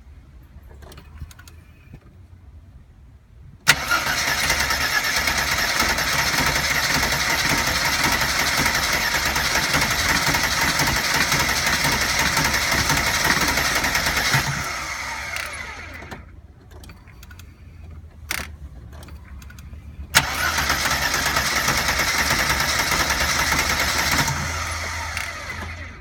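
1992 Mercedes 300E 2.6's M103 straight-six being cranked by its starter motor with the accelerator pressed, and not firing. There are two attempts: a long crank of about eleven seconds, then, after a click, a shorter one of about four seconds. Each starts suddenly and winds down as the key is released.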